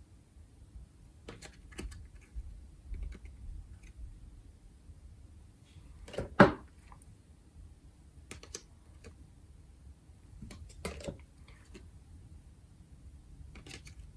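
Trading cards being handled and set down, with light scattered clicks and taps and one louder knock about six seconds in.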